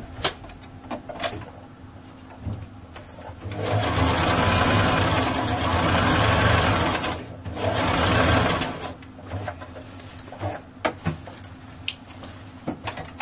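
Brother domestic electric sewing machine stitching a zipper onto a skirt panel: a few light handling clicks, then a steady run of stitching starting about three and a half seconds in, a brief stop, and a second short run, followed by more small clicks as the fabric is adjusted.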